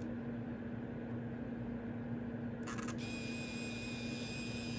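Ricoh GR1s compact film camera taking a picture with its body opened up. About two and a half seconds in there is a short burst of mechanism noise, followed by a steady high-pitched whine for about two seconds.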